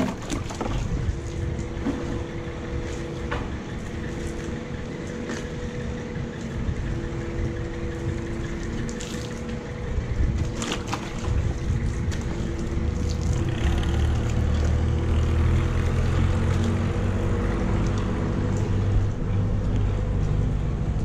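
A wash mitt sloshing in a bucket of soapy water and being wiped over a truck's panels, with scattered splashes and knocks. Under it runs a steady machine hum whose low rumble grows louder about halfway through.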